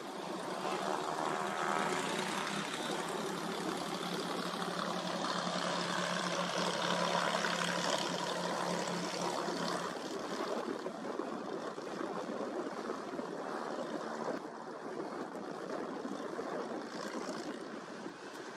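Piston engines of light propeller aircraft running as they taxi, a steady engine hum that fades about halfway through, over a steady rushing hiss.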